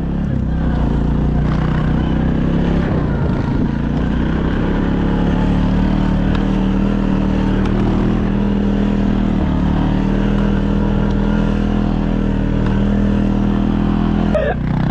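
Engine of a small off-road vehicle running steadily under load. Its pitch climbs a little a few seconds in, holds, and drops near the end.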